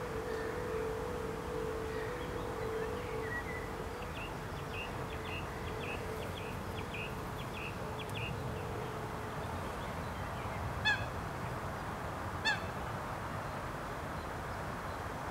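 Open-air ambience with a steady hiss. A faint run of quick small-bird chirps comes in the middle, and two short, loud honk-like bird calls follow about a second and a half apart.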